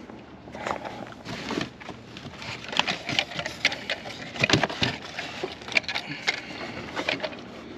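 Things being rummaged through and handled: irregular clatters, knocks and rustles of objects and boxes being moved and set down.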